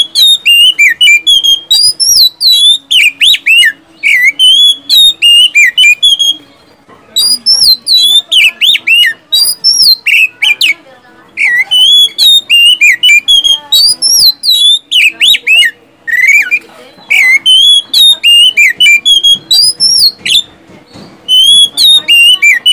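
Oriental magpie-robin (kacer) singing loudly in rapid bursts of sweeping whistled notes, phrases of several seconds broken by short pauses.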